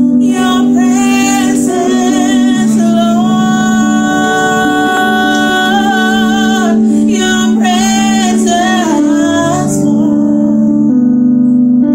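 A woman singing a slow worship song into a microphone over steady held instrumental chords. She holds long notes with vibrato, and her voice stops about ten seconds in while the chords carry on.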